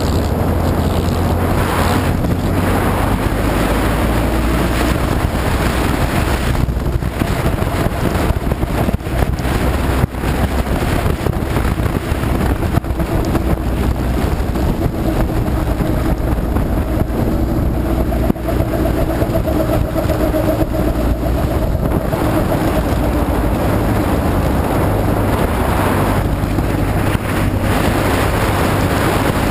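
Vintage speedway midget's engine running hard at racing speed, picked up by a camera mounted on the open car, with heavy wind buffeting the microphone.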